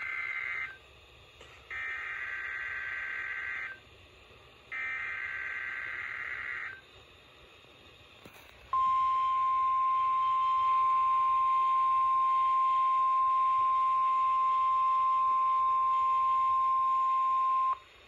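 NOAA Weather Radio alert coming through a Midland weather alert radio's speaker: the end of one buzzing SAME digital header burst, then two more bursts of about two seconds each, a second apart. After a short pause comes the steady 1050 Hz warning alarm tone, held for about nine seconds, announcing a severe thunderstorm warning.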